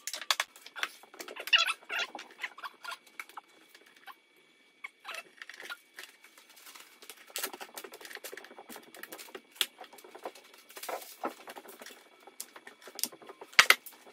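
Small plastic parts and bench items clicking and clattering as they are gathered up and set down by hand on a workbench, in irregular light taps with a few sharper knocks near the end.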